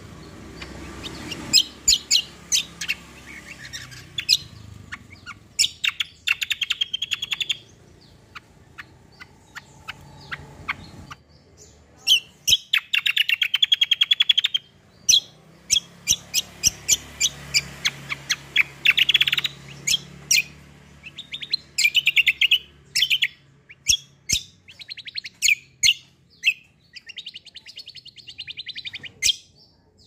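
A caged songbird singing: sharp loud chirps broken by fast trilled runs of one to three seconds, several times over, the rolling song with piercing notes that trainers use to draw out other birds.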